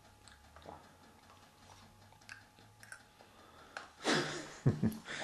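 A small child eating yogurt: faint clicks and scrapes of a spoon in a plastic yogurt cup, with eating sounds from the mouth. A short breathy sound comes about four seconds in, followed by a couple of sharp clicks near the end.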